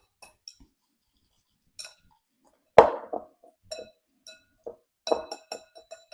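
A metal utensil clinking against a glass bowl at irregular intervals, with ringing overtones, while a sauce is being mixed. There is one louder knock about three seconds in and a quick run of clinks near the end.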